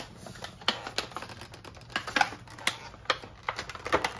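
Plastic packaging and a cardboard card box being torn and pulled open by hand: irregular crackles and sharp clicks of shrink wrap and a clear plastic tray.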